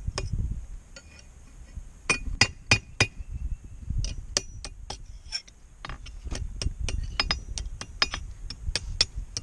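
Hammer blows on an anvil ringing, in runs of quick strikes about three a second, with short pauses between runs.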